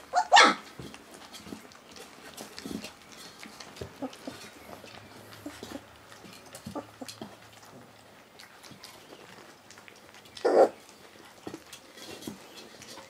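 A litter of puppies eating from a shared steel pan: scattered small smacking and clinking sounds, with a short loud yelp from a puppy just after the start and another about ten seconds in.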